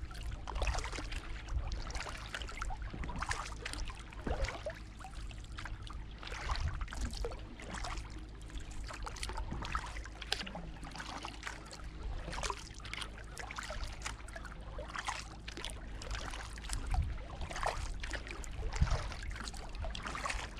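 Kayak paddle strokes on calm water: the blades dipping and dripping in a steady run of small splashes and trickles, over a low rumble.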